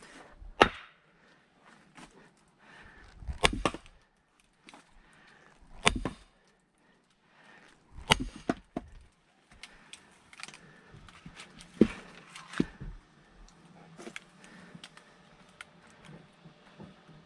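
Wood being split by hand: about six sharp blows on a log, a few seconds apart, with smaller knocks in between.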